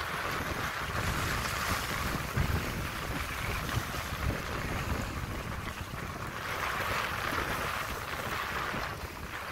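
Strong wind buffeting the microphone over choppy lake water washing against the shore, swelling twice in gusts and easing between them.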